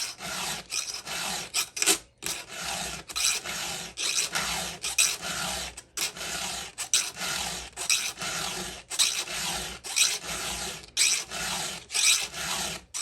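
Chainsaw file rasping across the cutter teeth of a new chain in repeated strokes, about one or two a second, with a light metallic tinkle now and then as the file clicks off the raker on the return stroke.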